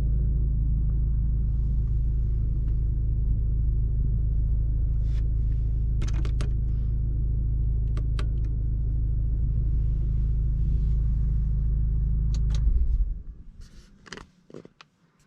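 Low, steady engine rumble of an APR-tuned Audi S3's 2.0 TFSI with a Remus exhaust, heard from inside the cabin, with a few sharp clicks. The rumble cuts off abruptly about thirteen seconds in, followed by a few more clicks in the quiet.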